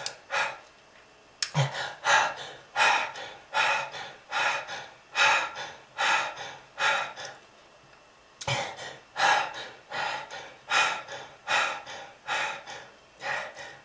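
A person gasping for breath in quick, heaving breaths, about two a second, in two runs with a pause of about a second in the middle: laboured, distressed breathing.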